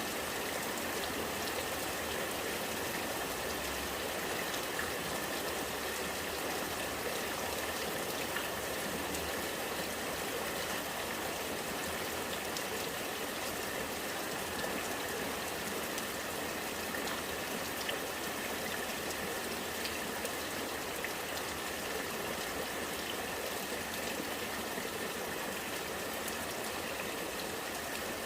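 Rainwater running and gurgling steadily, with scattered small drips.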